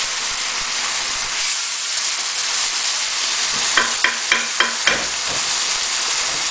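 Chicken curry sizzling and spitting in a wok over high heat while it is stirred with a wooden spoon, with a quick run of about five knocks a little under halfway through.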